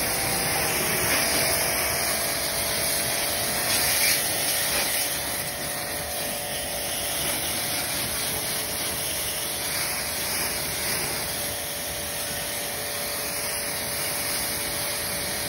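Pressure washer pump running steadily while its foam cannon hisses out a spray of shampoo foam; the noise cuts off sharply at the end.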